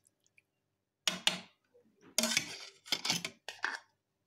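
A cooking pot and utensils clattering as they are handled: a series of knocks and scrapes starting about a second in.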